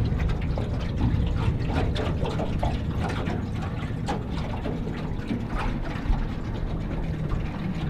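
Water splashing and slapping against the hull of a small motorboat moving slowly through choppy water, in quick irregular splashes over a steady low rumble.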